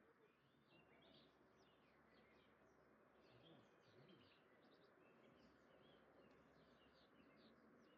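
Faint spring birdsong: many short chirps and trills from several small songbirds, over a low steady background hiss.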